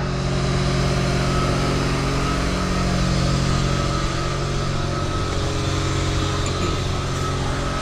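A machine running steadily: a low, even hum with a thin high whine held over it.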